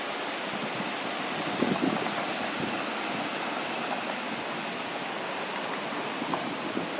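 Steady outdoor background hiss, an even wind-like noise, with two short louder sounds about a second and a half to two seconds in.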